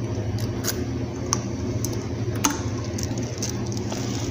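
Steady low hum made of several tones, with a few faint, scattered clicks.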